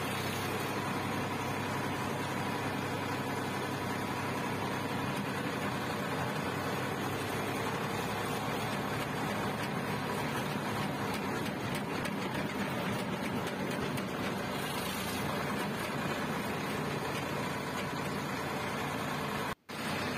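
Tractor engine running steadily as the tractor drives along, heard from the driver's seat. The sound cuts out for an instant near the end.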